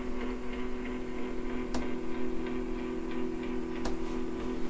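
Foldio Smart Turntable's motor running as the platform rotates: a steady, humming mechanical sound, with two light clicks.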